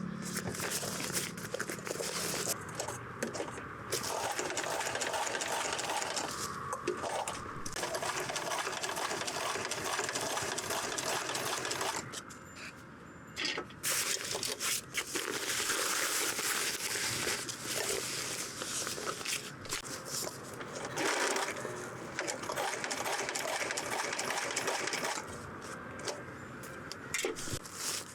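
Electric sewing machine stitching fabric in runs, stopping briefly now and then, with a longer pause about halfway through.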